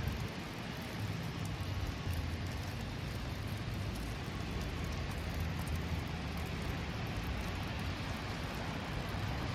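Steady downtown street ambience in wet, snowy weather: a low hum of city traffic under an even hiss.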